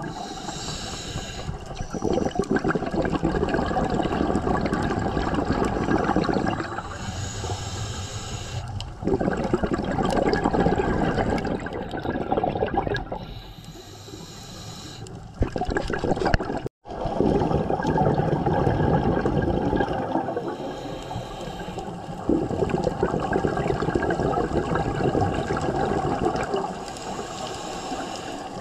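Scuba breathing through a regulator underwater: several seconds of rushing, bubbling exhaust at a time, alternating with shorter, quieter hissing inhales, about five breaths in all. The sound cuts out for an instant just past the middle.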